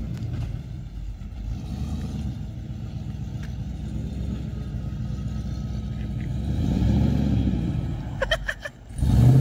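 Cammed 6.0 L LS2 V8 of a 2006 Trailblazer SS running at low revs with a steady low rumble, swelling briefly about seven seconds in.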